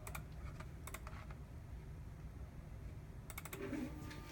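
Computer keys clicked in a few short bursts, over a steady low hum. Near the end, the stepper motors of the converted epMotion liquid handler start a steady, several-toned whine as the syringe-pump purge begins.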